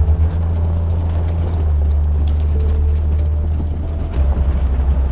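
Off-road 4x4 crawler's engine running with a low, steady rumble as it drives along a rough dirt track, heard from inside the open cab. A rapid throbbing comes in near the start and again about four seconds in.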